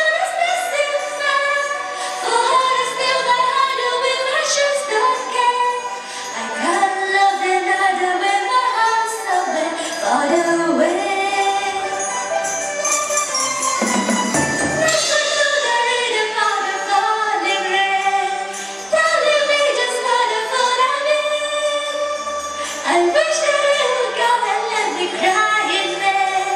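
Live orchestra accompanying a female singer, with a brief low drum swell about halfway through.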